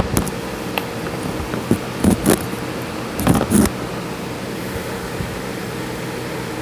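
A person coughing after vaping: short, sharp coughs in two pairs, about two and three and a half seconds in, over a steady background hum.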